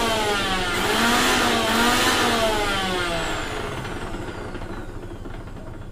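USHA Microsmart Pro 750 W mixer grinder motor running with a jar fitted, its whine wavering down and up in pitch, then switched off about three seconds in and winding down, the whine falling as the blades coast toward a stop.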